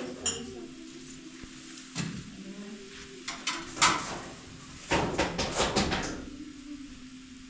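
Scattered knocks and clatter of objects being handled, with a dense run of them about five seconds in, over a steady low hum.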